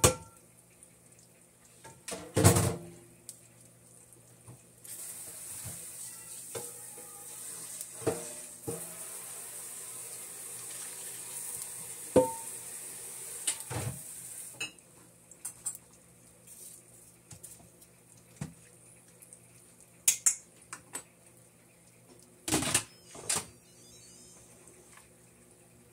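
Stainless steel pot clanking against the rim of an Instant Pot's metal inner pot as it is tipped and tapped, with a steady pour of liquid for about ten seconds from about five seconds in. Near the end the pressure-cooker lid clunks into place.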